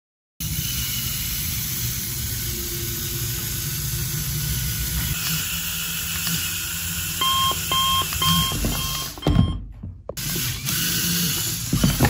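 Lego Technic car's electric motor and gear train running steadily with a low hum as the car drives up a plastic water bottle. A quick run of short beeps comes about seven seconds in. A few clattering knocks near the end come as the car tips over.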